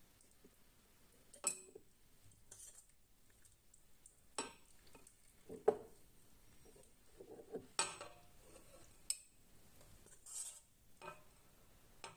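Faint, irregular clinks and soft knocks of boiled beetroot pieces being dropped by hand into a glass jar, and of the jar and a stainless steel pot being handled, several times with quiet in between.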